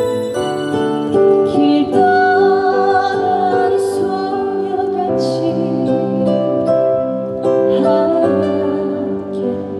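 Live slow ballad played over a stage PA: sustained melody notes over a steady chordal accompaniment.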